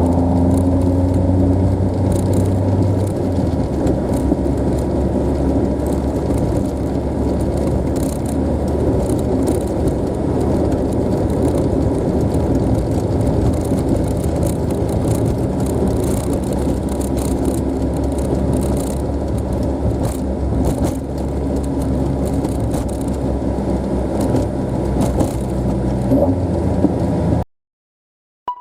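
Toyota AE86 Corolla on the move: steady engine and road noise, with a strong low engine drone in the first few seconds. It cuts off abruptly near the end.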